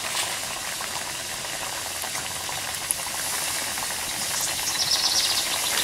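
Hot oil sizzling and bubbling steadily as breaded steelhead trout pieces deep-fry in a camp skillet, with a few light clicks of metal tongs turning the fish.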